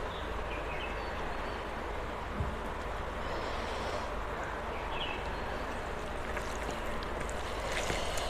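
Steady hissing background noise, with a few faint clicks and taps as food is served from a steel bowl and rice is mixed by hand on a steel plate.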